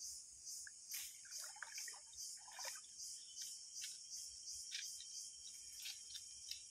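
A steady, high-pitched insect chorus, crickets trilling.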